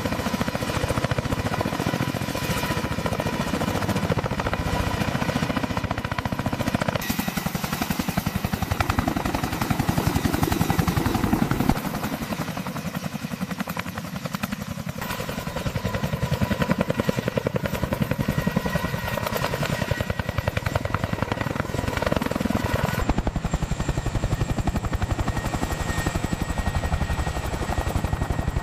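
CH-53K King Stallion heavy-lift helicopter hovering and lifting off: a fast rotor beat under a steady turbine whine. The sound shifts abruptly a few times.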